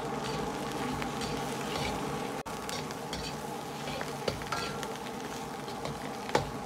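Lamb rib pieces, scallion, ginger and garlic sizzling in oil in a wok while a metal ladle stir-fries them, scraping and clicking against the wok a few times.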